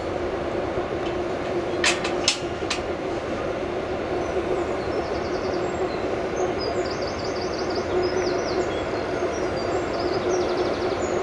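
Class 90 electric locomotive standing with its equipment running, giving a steady hum over the general rail-yard noise. Three sharp clicks come about two seconds in, and faint high chirping follows in the second half.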